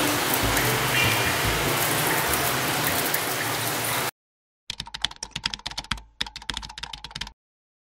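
Flaky, crispy pate chaud pastry crackling as plastic-gloved hands tear it apart. After a short silence, a keyboard-typing sound effect: a fast run of clicks lasting about two and a half seconds.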